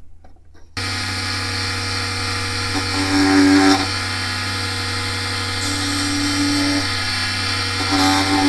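A mini bead lathe's small electric motor switches on about a second in and runs at steady speed with a high whine. A louder tone comes in twice, about three seconds in and near the end, as a pen is pressed against the spinning wooden barrel to mark its length.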